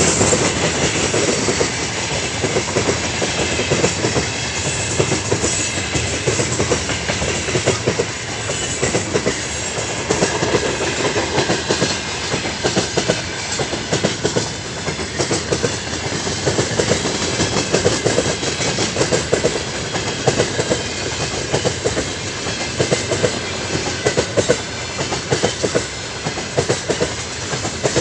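A heavy 49-car container freight train's flat wagons rolling past, their wheels clacking over the rail joints in a rapid, unbroken run of clicks over a continuous rumble.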